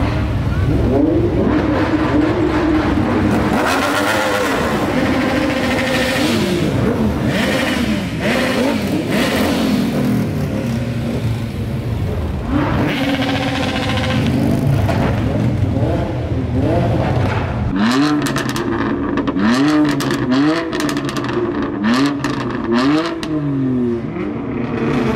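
Car engines revving hard, their pitch climbing and falling again and again over street traffic noise. In the last third comes a run of about five short, sharp rev blips in quick succession.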